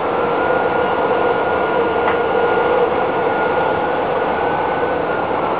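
Metro train running between stations, heard from inside the carriage: a steady rumble and hiss with a steady high whine over it.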